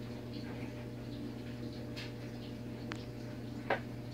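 Light handling clicks from a plastic model car being moved about, with a sharper, louder tap near the end, over a steady low electrical hum.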